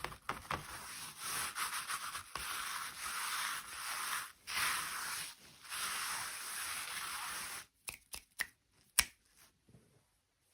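Steady rubbing or scraping noise in several long strokes with short breaks, followed near the end by a few sharp clicks.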